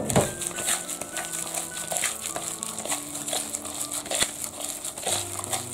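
Wet squishing and crinkling of a plastic-gloved hand kneading minced scallop dumpling filling in a bowl, an irregular run of small clicks and squelches.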